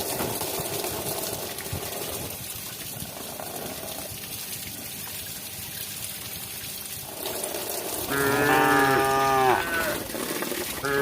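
A cow mooing twice: one long moo about eight seconds in that drops in pitch at its end, and a second moo starting near the end. Before the first moo there is only a faint, even background noise.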